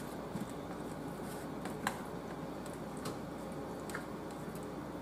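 Hands working seasoning into raw chicken legs in a metal baking pan: soft squishing of the skin and meat, with a few light clicks, the clearest just under two seconds in.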